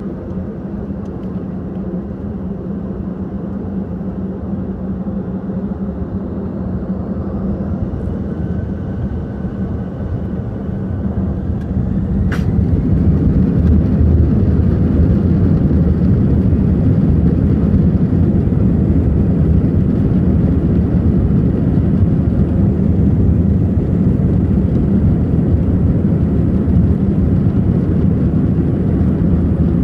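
Airbus A319 jet engines heard from inside the cabin, spooling up for takeoff: a steady low hum that grows louder about eleven to thirteen seconds in, then holds at takeoff power as the airliner rolls down the runway. A single sharp click sounds about twelve seconds in.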